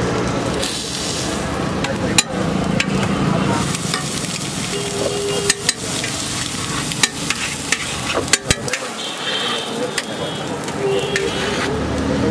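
Egg and masala mixture frying on a large flat iron griddle with a steady sizzle, while a long metal spatula scrapes and clicks against the iron plate, with about half a dozen sharp clicks.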